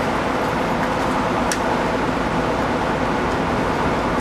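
A steady low rumble with hiss, and one short sharp click about a second and a half in.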